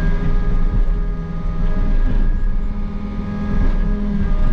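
Takeuchi excavator's diesel engine and hydraulics running steadily under load while the bucket digs, heard inside the cab as a low rumble with a constant whine over it.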